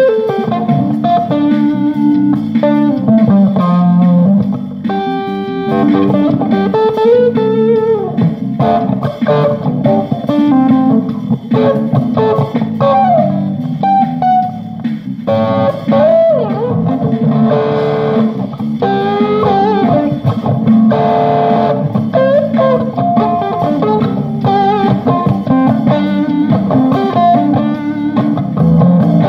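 Guitar jam: a single-note lead line with string bends over a steady low accompaniment.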